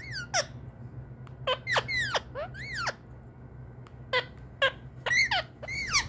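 Indian ringneck parrot giving a string of short, high squeaky calls, each arching up and then down in pitch, some in quick pairs.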